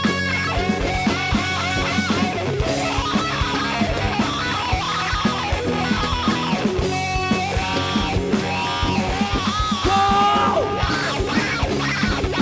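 Live rock band playing an instrumental passage: electric guitars, bass guitar and a drum kit, with lead-guitar notes bending up and down in pitch over a steady drum beat.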